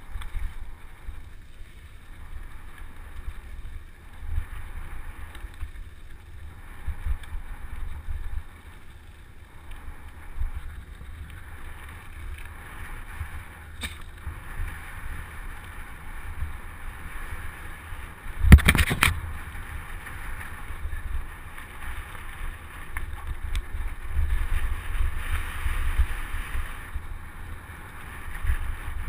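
Wind noise on a camera microphone riding along on a mountain bike, mixed with the bike rolling over a dirt trail. A single loud knock comes about two-thirds of the way through.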